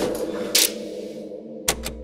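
Dark, sustained horror-score music fading away. Over it there is a short hiss about half a second in, then two sharp clicks in quick succession near the end, the first with a low thud under it.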